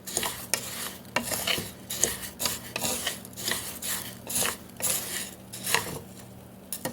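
A spoon scraping and stirring rice in a pan, in repeated strokes about two a second, with a short lull near the end. The rice is being stirred constantly over about medium heat so it won't burn.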